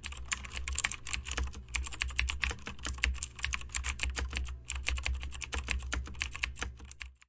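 Computer keyboard typing: a quick run of key clicks with a short pause a little past halfway, stopping just before the end.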